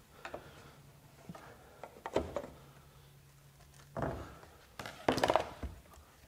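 A flathead screwdriver prying the plastic end tank off an aluminum-core radiator: scattered clicks, scrapes and knocks of steel against plastic and metal as the tank works loose. The sharpest knocks come about two, four and five seconds in.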